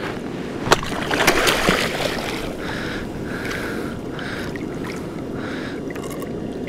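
Water splashing and a few sharp knocks beside a kayak as a hooked cabezon is brought in, then short swishes of water at an even pace, just under two a second, over a steady wash of wind and sea.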